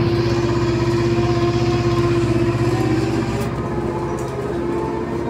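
Steady electrical whine with a low hum underneath, heard inside a BKM 321 trolleybus cabin from its running machinery.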